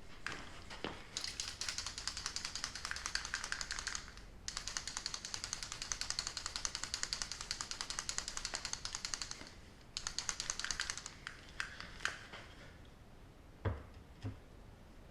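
A can being shaken by hand, rattling fast in three bouts, the longest about five seconds. Two dull knocks follow near the end.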